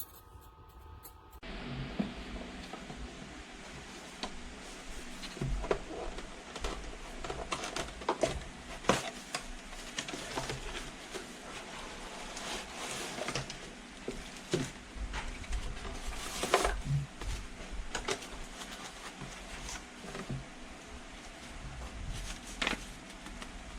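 Scattered light clicks and knocks over a steady faint hiss and hum, like small objects being handled.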